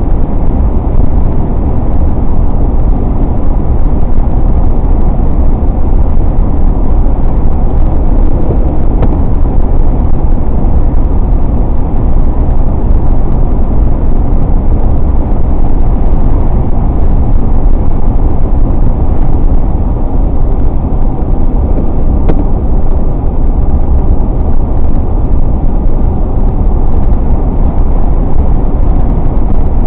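Steady, loud low rumble of a car driving at road speed: tyre and wind noise with no change in pace.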